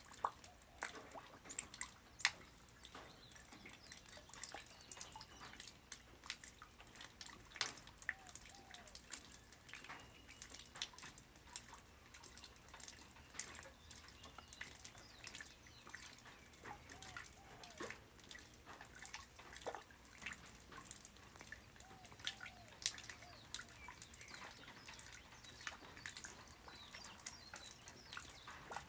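Light rain falling on the ground: a soft steady patter with many scattered, irregular drips and drops, some louder and sharper than others.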